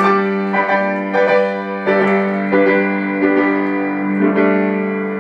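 Grand piano played: a run of struck notes and chords, new ones about every half second, ringing on over one another, then held and slowly dying away near the end.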